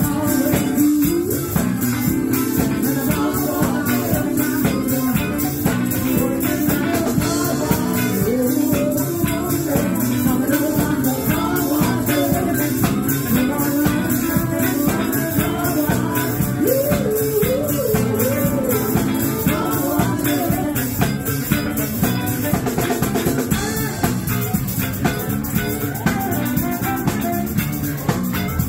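A live band playing amplified music on electric guitars and drums, with a steady beat.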